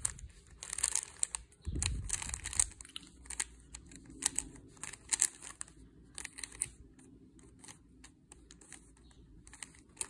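Plastic 3x3 Rubik's cube being turned by hand, its layers giving quick, irregular clicks and clacks, busiest in the first three seconds and sparser after. A dull thump about two seconds in.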